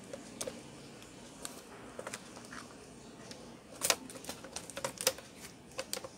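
Plastic clicks and snaps from the replacement keyboard deck of an ASUS C202S Chromebook as it is set onto the base and pressed down into place. Scattered single clicks come first, then the loudest snap about four seconds in and a quick run of clicks after it.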